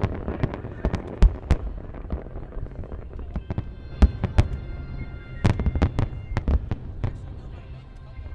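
Aerial fireworks going off in an irregular series of sharp bangs over a low rumble, with the loudest reports about a second in, about four seconds in, and in a dense cluster a little later.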